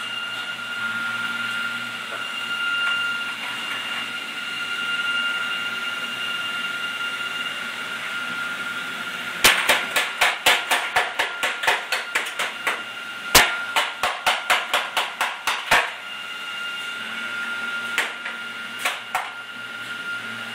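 Plastic toy hammer banging rapidly on a child's toy workbench, about four strikes a second in two runs of a few seconds, then two or three single strikes near the end. A steady high tone sounds before and after the banging.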